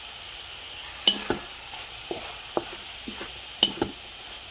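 A spatula scraping and knocking against a wok-style pan while stir-frying vegetables, over a steady sizzle. About seven knocks and scrapes, the loudest about a second in and again past three and a half seconds.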